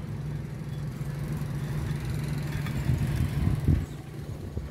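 Steady drone of a 3-inch engine-driven water pump running, pumping flushing water for a manual borewell drill, with a louder swell about three seconds in.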